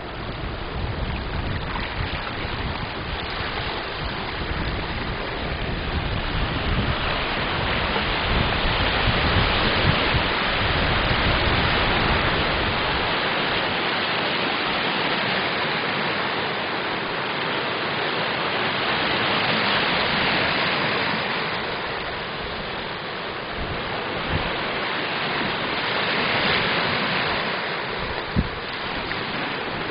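Small waves washing up onto a sandy shore, a steady wash of surf that swells and eases every several seconds. Wind buffets the microphone with a low rumble for roughly the first half, then drops away.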